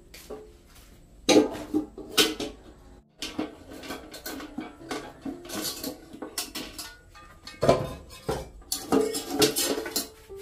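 Pots, pans and dishes clattering and clanking as they are handled: a run of irregular knocks, with the loudest clanks near the start and again near the end.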